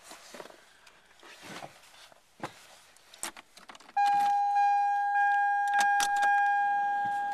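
Keys rustling and clicking at the steering column of a 1993 Toyota Camry. About four seconds in, a dashboard warning chime starts: one steady high ding struck again about every half second, each decaying into the next, as the ignition is switched on with the engine not yet cranked.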